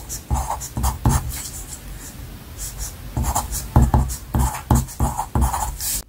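Pencil writing on paper: a quick run of short scratching strokes as letters and numbers are written out.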